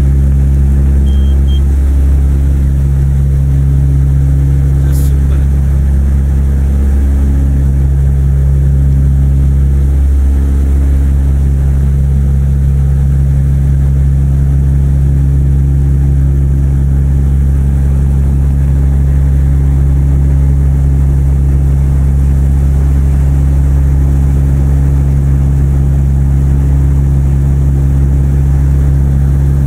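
Twin Rotax 912 four-cylinder engines and propellers of a Tecnam P2006T in flight, heard inside the cabin as a loud, steady drone.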